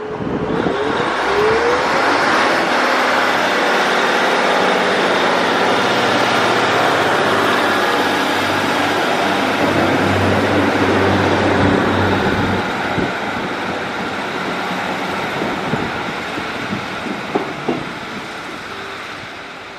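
Northern Class 150 diesel multiple unit pulling away from the platform, its underfloor diesel engine running under power with a rising note at the start. It stays loud for about twelve seconds, then fades as the train leaves, with a few sharp clicks near the end.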